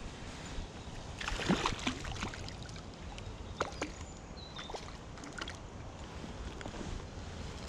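Rustling and a scattered run of sharp clicks from hands, sleeve and bankside grass being handled close to the microphone, busiest early on and again around the middle, over a low steady background rumble. A short high chirp sounds about four seconds in.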